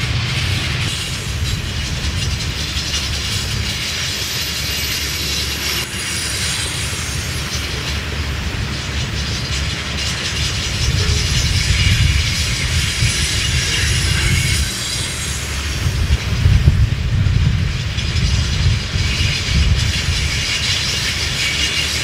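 Freight train of steel tank cars rolling slowly past, its wheels clicking over the rail joints, with a faint high wheel squeal at times. Strong wind rumbles across the microphone in gusts, swelling around the middle and again later on.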